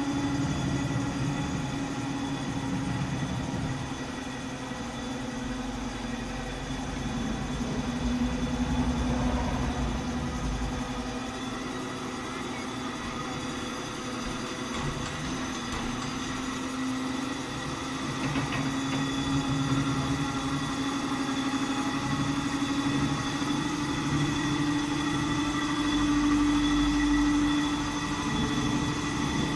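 D51 steam locomotive standing on a turning turntable: a steady mechanical hum with a low rumble that swells a couple of times.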